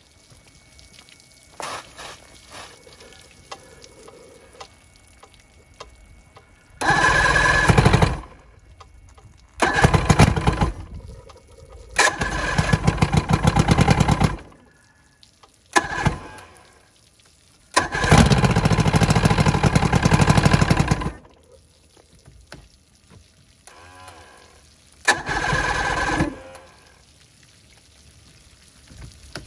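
Vintage Evinrude SPL 88 V4 two-stroke outboard cranked on its electric starter in about six bursts, each from under a second to about three seconds long, with pauses between. This is a cold start after winter storage.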